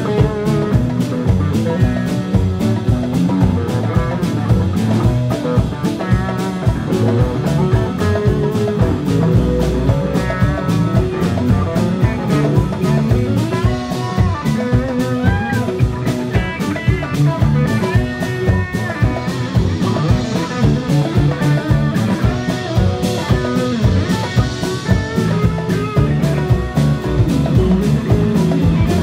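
Live rock band jamming: a wavering guitar lead line over drums and bass, with a steady beat.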